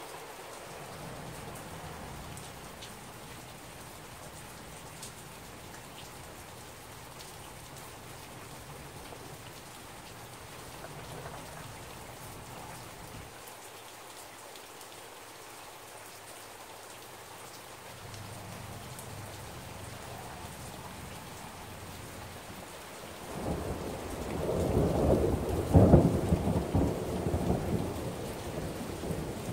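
Steady rain falling, then near the end a roll of thunder builds into one loud clap and rumbles away.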